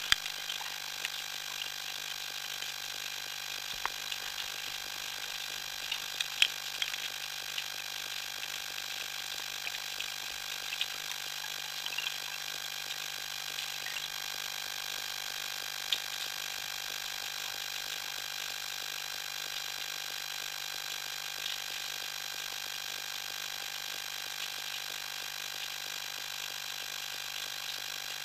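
Underwater ambience picked up through a diving camera's housing: a steady hiss with scattered sharp clicks and crackles, the loudest near the start, about six seconds in and about 16 seconds in.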